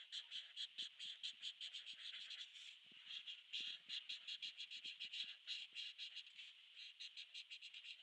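Marker being rubbed quickly back and forth on paper: a fast, even run of short scratching strokes, several a second.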